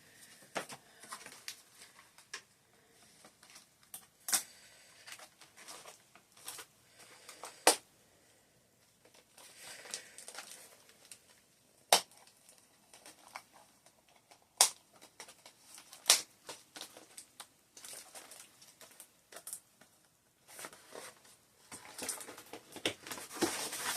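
Cardboard and plastic doll packaging being handled: scattered sharp taps and clicks, with stretches of soft rustling and crinkling about ten seconds in and near the end.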